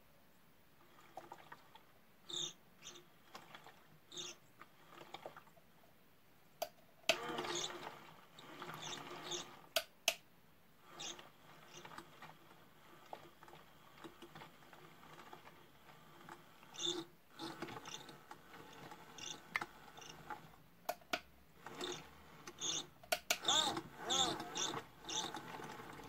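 Water sloshing and gurgling in the turning drum of a toy Miele washing machine, in irregular splashes with quieter stretches between, busiest about seven seconds in and again near the end.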